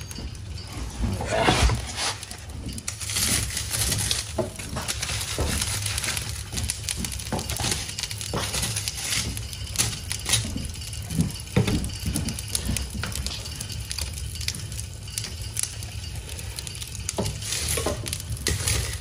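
Split wood being loaded into an open cast-iron wood stove over a crackling fire: irregular knocks and clunks of wood against wood and the iron firebox, with the fire crackling and popping throughout.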